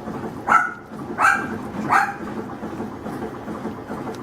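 Adult poodle barking in the background: three short, high yaps in quick succession in the first two seconds, from the mother dog, which the breeder takes to be jealous of the puppies' food.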